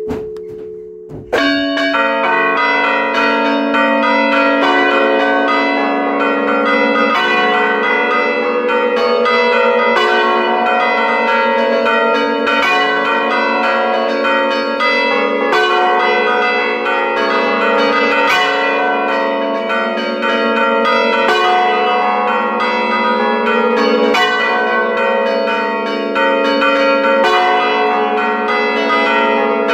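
Bronze church bells of a five-bell tower rung together close up inside the bell chamber: a fast, continuous peal of overlapping clapper strikes, with one bell swinging up and back. A single bell's hum lingers for the first second, then the full peal comes in abruptly.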